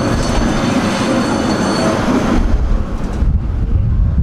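Tram running on its rails: steady wheel-and-track rolling noise with faint high wheel squeal. About halfway through the hiss and squeal drop away suddenly, leaving a low rumble.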